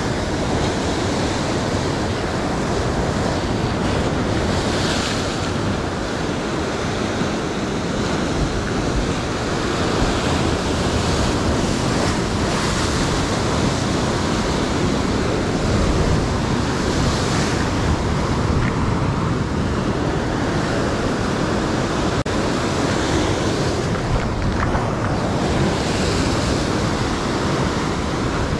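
Ocean surf breaking and washing over the sea rocks just below: a steady rush of white water, with louder surges every five to seven seconds.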